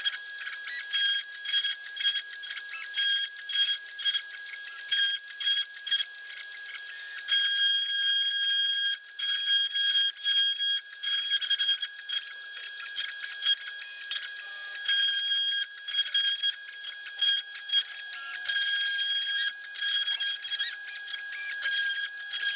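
Small CNC router's spindle running with a steady high whine while its bit engraves a pine board, the cutting noise coming and going in short rapid bursts.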